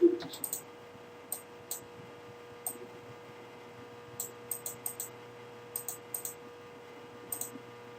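Scattered clicks of a computer mouse, often in quick pairs, over a faint steady electrical hum.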